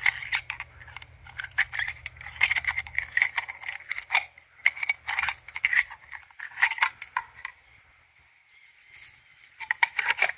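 Brass 7.5×55mm Swiss rifle cartridges clicking and clinking against one another and a 3D-printed plastic stripper clip as they are loaded into it by hand. A quick run of sharp clicks gives way to a brief lull about three-quarters of the way through, then a few more clicks near the end.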